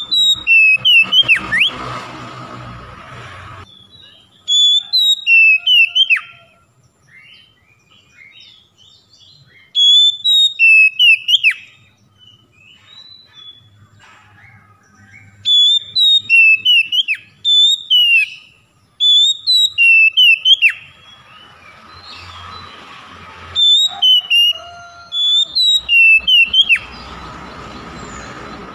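Oriental magpie-robin (kacer) singing loud, sharp whistled notes with quick up-and-down sweeps. The notes come in about five bursts of song, each a second or more long, separated by pauses of a few seconds.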